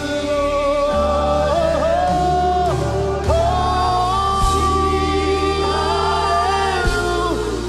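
Live gospel worship music: voices hold long, wavering sung notes over a steady band with a sustained bass.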